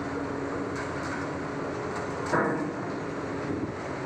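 Heavy diesel machinery running steadily, with one sudden loud bang a little past two seconds in.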